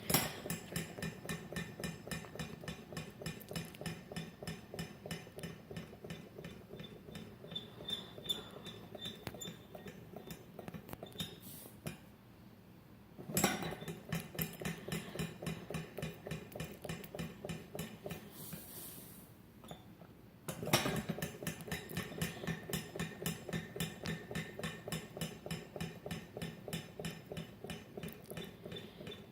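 Tornado siren's chopper rotor spun by hand three times. Each spin starts suddenly with a rapid, even metallic clicking and ringing over a steady low hum, and fades slowly as the rotor coasts, with no siren wail.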